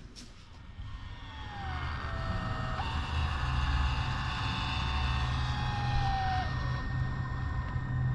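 A battery-powered caulking gun's motor runs steadily, driving the plunger to push urethane windshield adhesive out of the cartridge nozzle. A low hum builds about a second in, with a faint whine that drifts in pitch over it.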